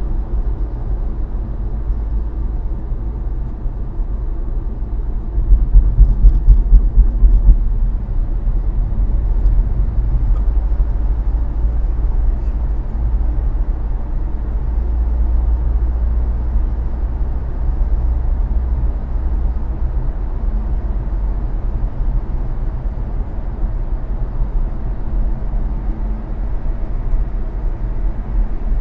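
A car driving at speed on an expressway: steady low road and engine noise, with a louder, rougher stretch about six to eight seconds in.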